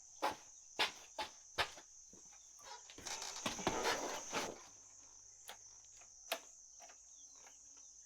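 Steady high-pitched insect chirring in the background, with four sharp knocks and clicks in the first two seconds, a stretch of rustling and shuffling from about three seconds in, and one more click near the end. No engine is running yet.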